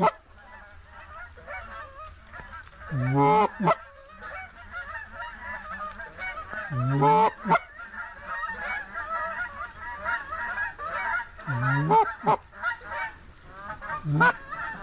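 A large flock of snow geese and Canada geese calling nonstop, a dense chatter of honks and yelps. Louder single honks stand out about every four seconds, near the start, in the middle and near the end.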